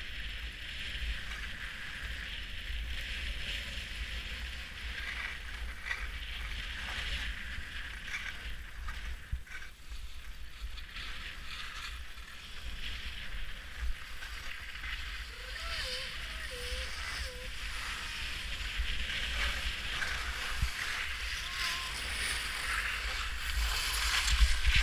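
Skis sliding and scraping over packed snow in a steady hiss, with wind buffeting the microphone in a low rumble. It grows louder near the end as the run speeds up.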